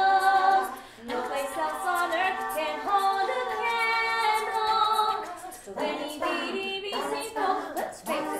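Several women's voices singing a cappella in close harmony: a held chord fades about a second in, then a new chord is sustained for several seconds. Near the end the held notes give way to shorter, choppier vocal sounds.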